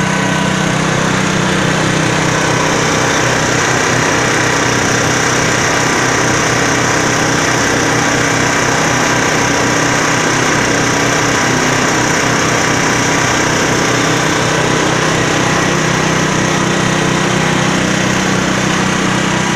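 Diesel engine of a 280-litre concrete mixer running steadily at a constant speed.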